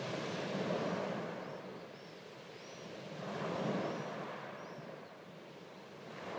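Small waves washing onto a sandy beach: a steady hiss of surf that swells and falls back twice, with faint high chirps about once a second.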